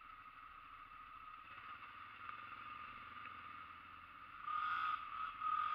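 ATV engine running, with two louder surges of revving near the end.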